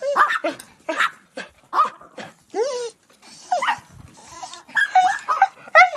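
Several Pomeranians barking: short, high-pitched yaps coming in quick, irregular succession, some overlapping.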